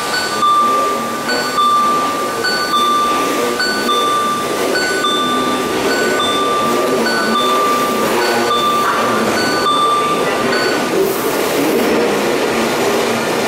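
Tobu 100 series Spacia limited express train rolling slowly into a platform, a continuous low rumble. Over it, electronic beeps repeat about once a second and stop about ten seconds in.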